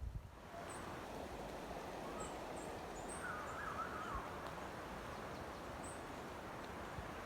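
Woodland ambience: a steady rushing noise with small birds chirping faintly and briefly throughout, and a wavering call near the middle.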